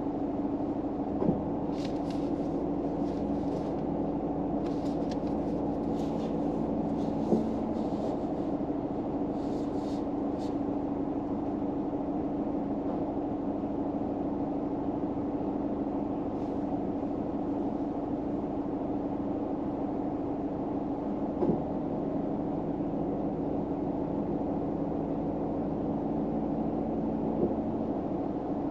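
Steady low hum inside a car, with one constant pitched tone, from the vehicle's engine or fan running. A few brief soft clicks break through, and light crackling comes and goes in the first ten seconds.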